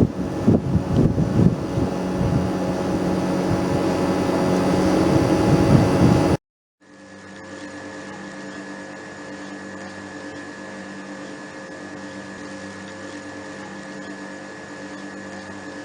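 Outdoor unit of a Mitsubishi Electric Kirigamine MCUZ-G2520 room air conditioner running in heating mode: a loud steady whir of fan and compressor with a gusty low rumble in the first couple of seconds. About six seconds in it cuts off abruptly, then comes back quieter as a steady hum with several held tones, fading out at the end.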